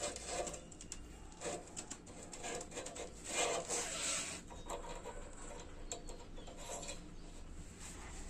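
Metal rubbing and scraping in short, irregular bouts, loudest about three and a half seconds in, as a greased steel shaft is pushed through a bush in a TVS 50 moped frame.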